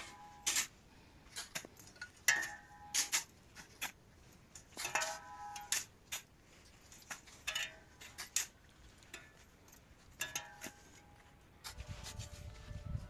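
Irregular metallic clinks and knocks, some ringing briefly, as hand shovels strike the steel sides of a tractor trolley while sand is shovelled in. A low rumble comes in near the end.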